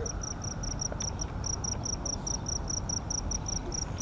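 A cricket chirping steadily, a high evenly spaced chirp about five times a second, over a low steady rumble.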